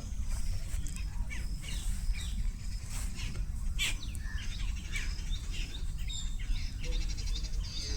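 Several birds chirping, many short quick notes overlapping, over a steady low rumble.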